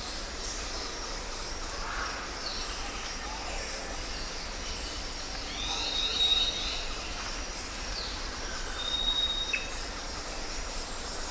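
Tropical forest ambience: a steady hiss of insects with birds calling over it, including a clear whistled note held for about half a second around six seconds in and again near the end, plus scattered short chirps.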